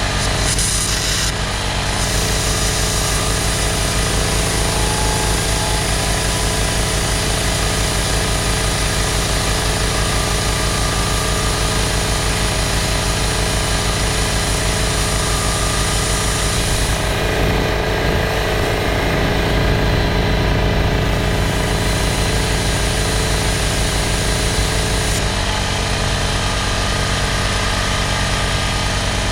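A motor-driven machine running steadily, with an even rapid pulsing throughout. Its high hiss drops away for a few seconds past the middle.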